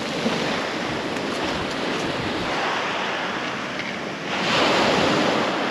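Ocean surf washing onto the shore, a steady hiss of breaking water that swells louder about four seconds in as a bigger wave comes in.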